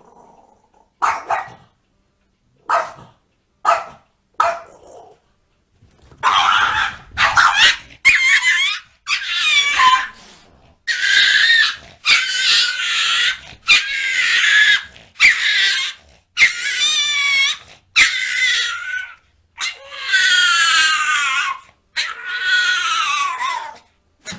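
A dog vocalising: a few short sounds at first, then a run of about a dozen long, high-pitched calls, each about a second long and many falling in pitch.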